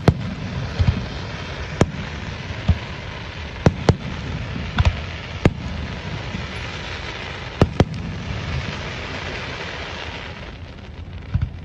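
Aerial fireworks shells bursting overhead: about ten sharp bangs, some in quick pairs, over a continuous hiss that dies away near the end.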